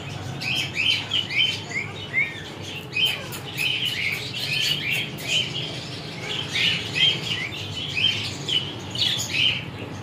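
Many birds chirping: a dense, unbroken run of short high chirps, several a second, over a low steady hum.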